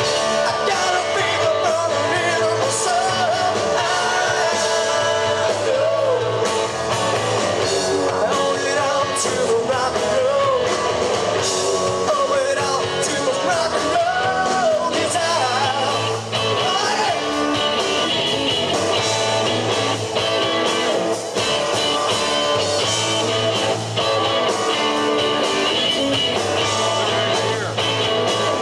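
Live rock band playing: a lead singer over electric guitars and a drum kit.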